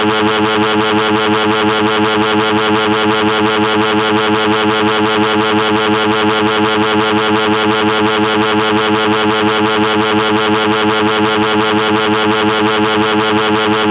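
A loud, steady buzzing drone with a rapid, even pulse.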